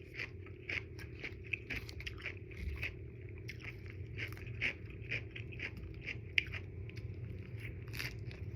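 Close-miked chewing of udon noodles: a steady run of short, wet mouth clicks and smacks, about three a second.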